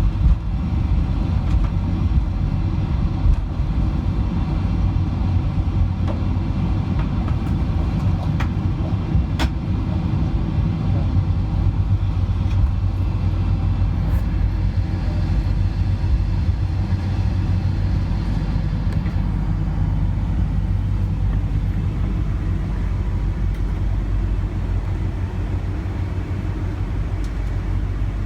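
Loud, steady rumble inside the cabin of a Boeing 747-400 airliner during its landing at the end of the flight. A couple of sharp clicks come about eight and nine seconds in, and the higher-pitched part of the noise eases off about two-thirds of the way through.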